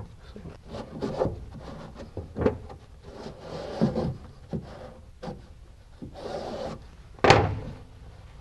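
Cloth headliner being pulled taut and rubbed down by hand against the car's body, in a string of rustles and soft knocks, with one louder sudden knock a little after seven seconds in.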